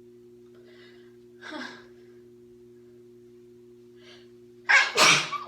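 A woman draws a short gasping breath about a second and a half in, then sneezes loudly near the end, a quick two-part burst.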